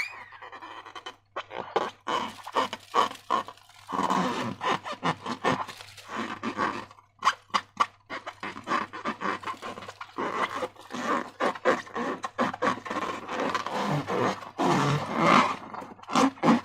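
Slime being squeezed and stretched by hand, giving a fast, irregular run of sticky squelches and crackles.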